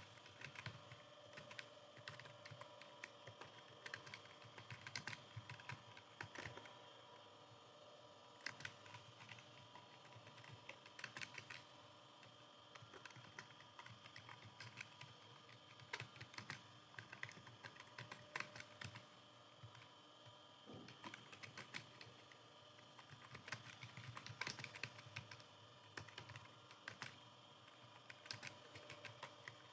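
Computer keyboard keys clicking in quick irregular runs as someone types, with brief pauses between runs, over a faint steady hum.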